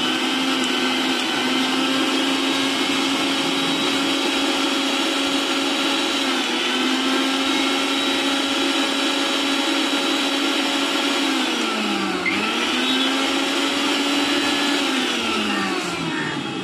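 A small electric motor running at high speed with a steady whine. Its pitch sags briefly about six and a half seconds in, dips deeply and picks up again around twelve seconds, and falls away near the end as it winds down.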